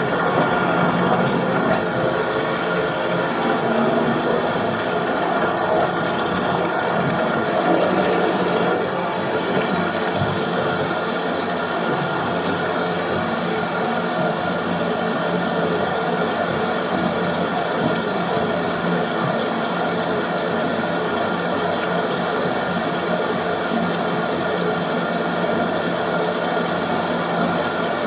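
High-pressure drain-cleaning washer running steadily, jetting water through a washing-machine drain pipe.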